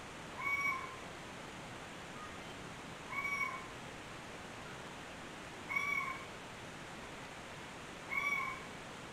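A short, meow-like animal call that rises then falls, repeated four times at an even pace about every two and a half seconds over a steady hiss.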